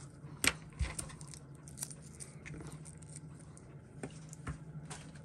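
Scattered small clicks and taps of a steel tool and fingertips handling an open-backed watch case and its movement, over a low steady hum.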